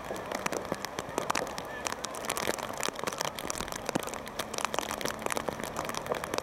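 Dense, irregular crackling clicks over the open-air hush of a playing field, with faint distant voices.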